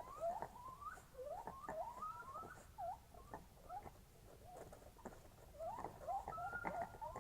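A rapid run of short squeaky calls, most sliding upward in pitch, several a second, with sharp clicks scattered between them. The recording is presented as sasquatch vocalizations; the actual source is unidentified.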